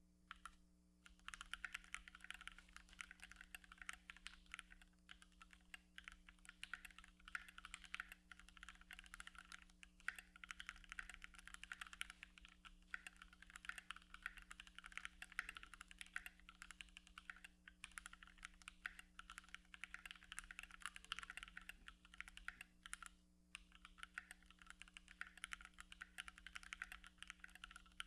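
Typing on a Keychron Q2 mechanical keyboard with an aluminium case and Gateron G Pro Brown switches: a fast, continuous clatter of keystrokes starting about a second in, with a few brief pauses.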